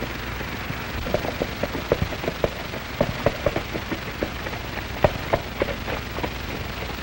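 Hoofbeats of a galloping horse: quick, irregular sharp clops, some louder than others, over the steady hiss and low hum of an old film soundtrack.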